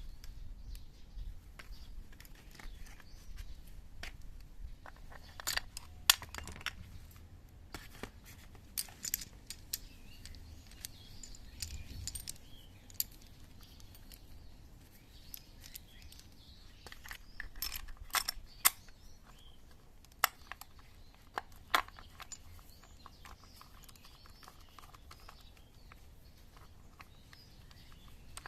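Scattered metallic clicks and clinks of hand tools and small metal parts being handled during scooter gearbox work, some sharper knocks among them, over a faint low hum.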